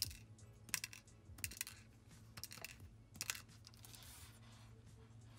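Scissors snipping thin strands of polymer clay into short sprinkles: a series of quiet snips, about one every three-quarters of a second.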